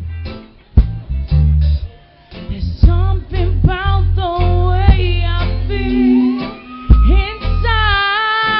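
Live band music: guitar chords over a heavy bass, with a woman singing from about three seconds in.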